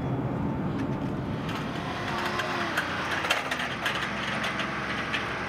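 Flight deck vehicle and machinery noise: an engine running steadily, with scattered clicks and rattles.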